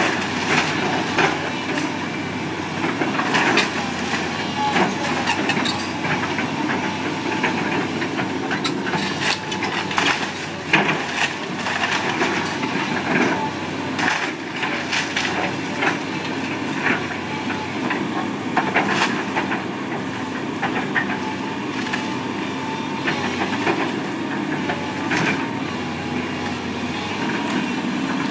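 A heavy machine's engine running steadily while wood cracks, snaps and crunches again and again as a house's timber frame is torn down.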